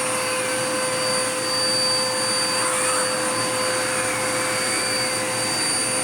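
Dirt Devil Power Max vacuum cleaner running steadily, its motor giving an even rush of air with a constant high whine.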